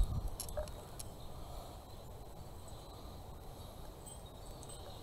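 Light handling noises of a small paint bottle and a glass cup: a knock right at the start and a few faint clicks in the first second, then only steady low background noise.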